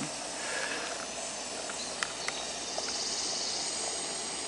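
Campingaz canister gas stove burning with a steady hiss under a stainless steel pot of water coming to the boil, with a few faint ticks about two seconds in.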